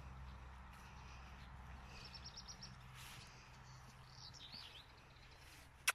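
Quiet outdoor ambience: small birds chirp faintly in the background, with one short rapid trill about two seconds in, over a low steady rumble. A sharp click comes at the very end.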